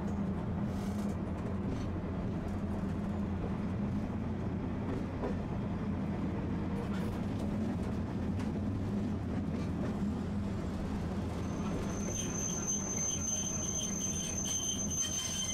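Tosaden streetcar running along the track, heard from inside the car: a steady low rumble and hum. About twelve seconds in, a high, steady squeal joins it and holds to the end.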